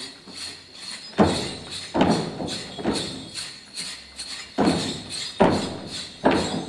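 Folk dancers stamping their feet in a steady rhythm, a little over one heavy stamp a second, each with a short ringing tail.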